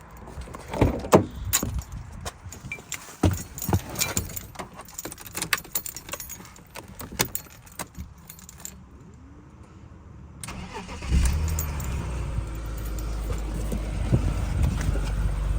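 A run of clicks and knocks, with keys, then a BMW E46 325Ci's straight-six engine starts about eleven seconds in and settles into a steady idle. This is the first start after the intake repair meant to cure its multiple-cylinder misfire, and it idles smoothly.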